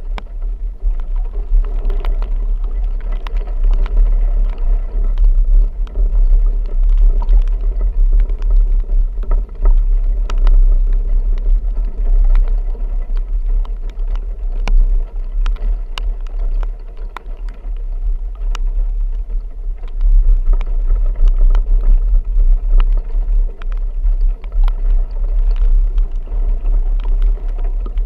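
A motor vehicle driving, with a strong steady low rumble and scattered sharp ticks throughout.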